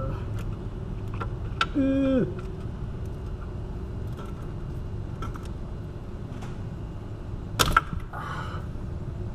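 Scattered metal clicks and taps of a 13 mm swivel socket being worked onto a wheel hub's mounting bolts, with a loud sharp double clank near the end.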